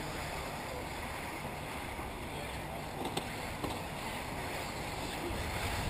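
Steady rushing outdoor noise with a low rumble, typical of wind on the microphone, with a couple of faint clicks about three seconds in.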